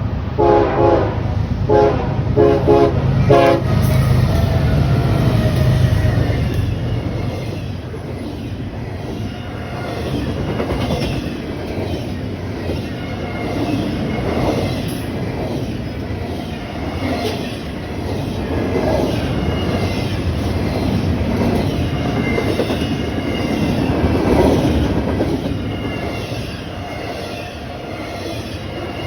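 A passing train: its horn sounds in a quick series of short blasts over the heavy rumble of the locomotive, then the cars roll by with wheels clacking over rail joints and faint squeals.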